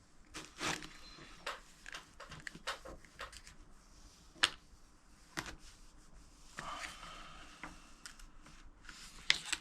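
Irregular small clicks and light scraping of a vinyl decal being worked onto a plastic dirt bike side panel by hand, with a couple of sharper taps about halfway through and near the end.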